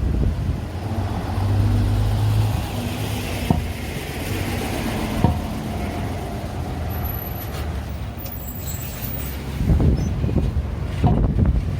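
Road traffic: motor vehicles running and passing, with wind buffeting the microphone near the end.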